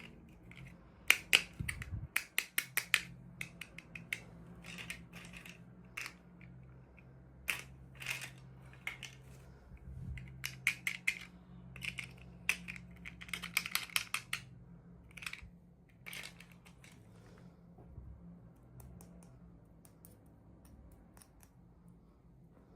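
Rapid small clicks and taps of toy packaging and miniature pieces being handled, coming in irregular clusters and thinning out over the last few seconds, over a faint steady hum.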